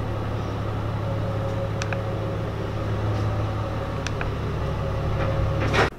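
Steady low mechanical hum with a few faint light clicks, cutting off abruptly just before the end.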